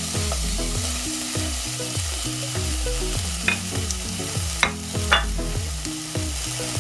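Chopped onion frying in melted butter in a saucepan, a steady sizzle while it is stirred, with three sharp clicks of the spoon against the pan around the middle.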